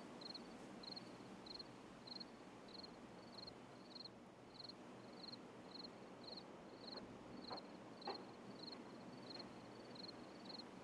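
Faint night ambience: a cricket chirping steadily, about one and a half high chirps a second, over a low hiss.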